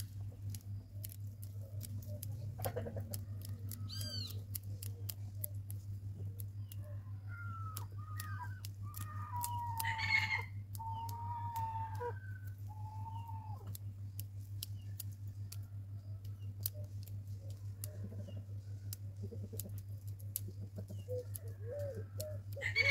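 Pruning shears snipping through the roots of a root ball, a scattered series of sharp clicks over a steady low hum. Birds call during this, the loudest a long call about ten seconds in.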